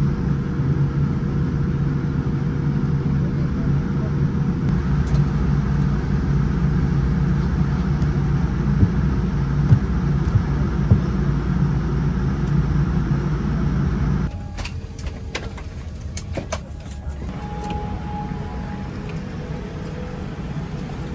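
Steady low cabin rumble of a Boeing 787 airliner, with a faint steady hum above it, that cuts off suddenly about 14 seconds in. After that comes a quieter background with a few sharp clicks.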